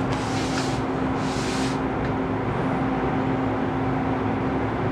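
Steady mechanical hum with one constant low tone under a wash of even noise. Two brief soft hisses come in the first two seconds.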